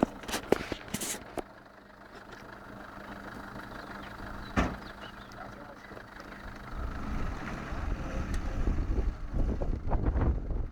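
Off-road 4x4 vehicle engine idling with a steady hum, and a few sharp knocks in the first seconds and again near the middle. Later a louder, uneven low rumble builds up.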